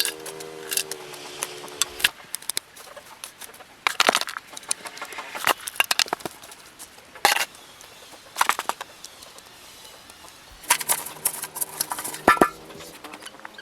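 Chickens calling and clucking, with two drawn-out calls of about two seconds each, one at the start and one near the end. Sharp clicks and knocks are scattered between them.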